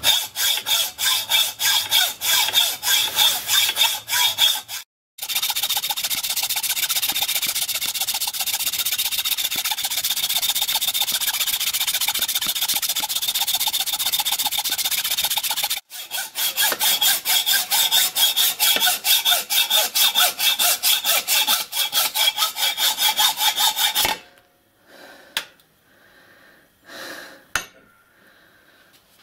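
Hand hacksaw cutting through a solid cast iron block, at about two steady strokes a second. The sawing stops about 24 s in and is followed by a few faint knocks.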